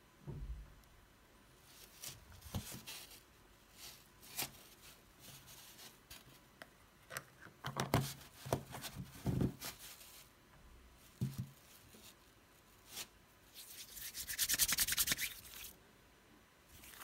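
Small plastic cosmetic jar handled and its lid screwed back on, with scattered light clicks and knocks. Near the end, hands rub together quickly for about a second and a half, working the cream into the skin.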